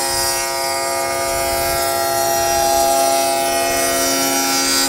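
SawStop table saw running with a steady whine while a board is fed across the blade, cutting a 3/4-inch-wide, quarter-inch-deep dado.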